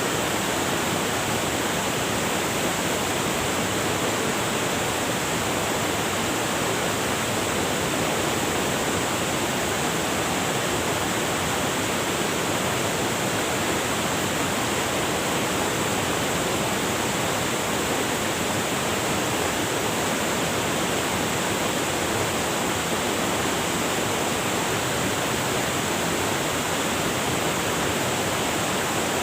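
River water rushing over rocks, a steady, unbroken rush.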